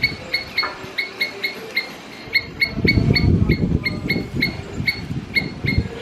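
Squirrel calling a rapid, rhythmic series of short chirps, about four a second, pausing briefly around two seconds in. A low rumbling noise joins about halfway through.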